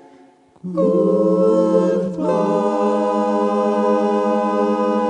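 A cappella vocal ensemble singing close harmony. After a brief pause, the voices hold one long chord, which moves to a new chord about two seconds in.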